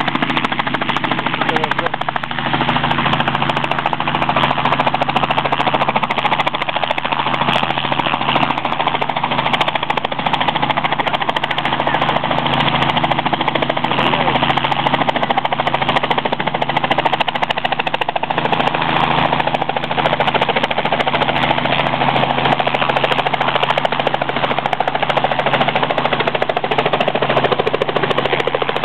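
Robinson R44 helicopter hovering low, its main rotor beating rapidly over the steady drone of its piston engine.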